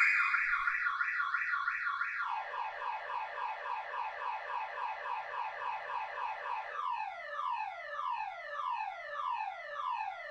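Car alarm going off and cycling through its tones. It starts as a fast warble, switches to rapid falling sweeps about two seconds in, then to slower falling whoops about twice a second near the end.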